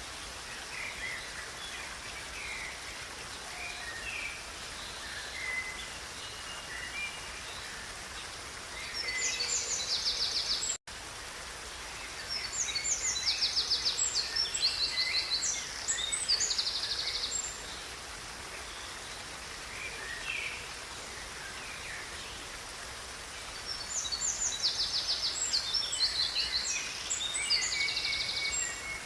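Songbirds singing over the steady rush of a river, with three louder bouts of fast, high trilling songs. The sound cuts out for an instant about eleven seconds in.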